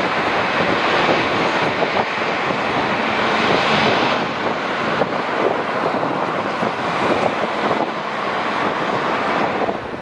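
Boeing 747-400 jet engines running loud, a dense rushing roar mixed with wind on the microphone, which drops off suddenly near the end.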